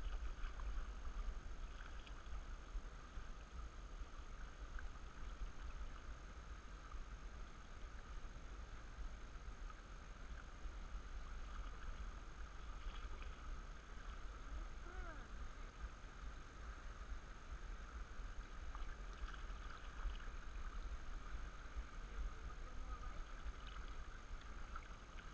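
Canoe being paddled on a river: a faint, steady wash of water along the hull with paddle strokes, over a low steady rumble.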